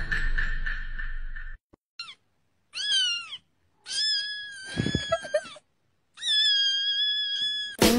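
Kitten meowing three times: a short meow falling in pitch, then two long drawn-out meows. A brief noisy buzzing sound stops about a second and a half in, before the meows.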